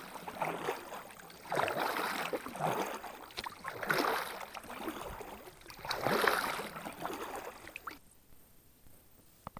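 Double-bladed paddle strokes from an inflatable kayak, the blades splashing and swishing through calm water about once every two seconds. The strokes stop near the end.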